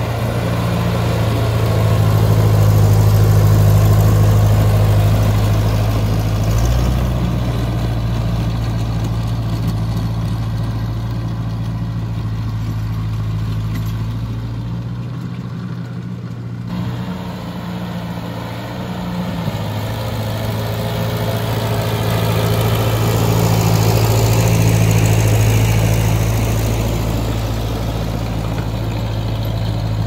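Old Ford tractor engine running steadily under load while pulling a rotary tiller through the soil. It is loudest twice, about three seconds in and again near the end, and fainter in between.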